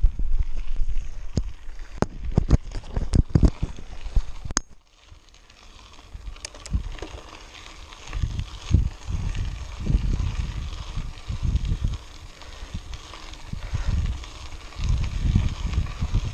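Mountain bike riding up a dirt road, heard from a camera mounted on the bike or rider: a run of sharp clicks and knocks over rough ground for the first few seconds, then, after a sudden cut, an uneven low rumble of tyres and wind on the microphone.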